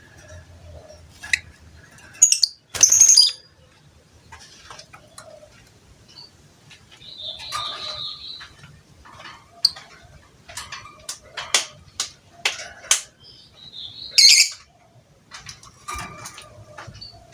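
Lovebird calling: a string of sharp chirps and shrill screeches with uneven gaps. The loudest screeches come about three seconds in and again near the end, with a quick run of short calls shortly before the second.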